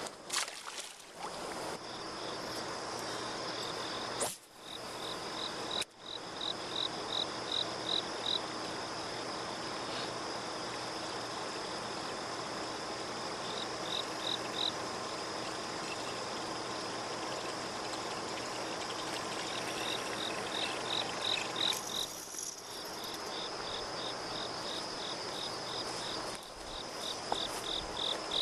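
Summer insect chorus: a steady high-pitched drone with runs of crickets' evenly spaced chirps, roughly five a second, coming in several bouts and loudest near the end.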